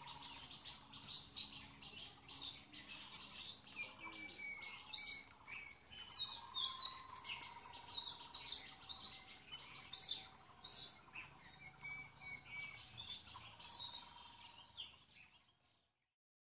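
Birds chirping: many short, high chirps and quick falling calls, with a faint steady high tone behind them. The sound fades out near the end.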